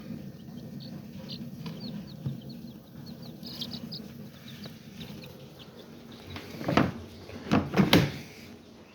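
Baby chicks peeping, a run of short high chirps over the first few seconds. Near the end come three or four loud, sudden sounds close together.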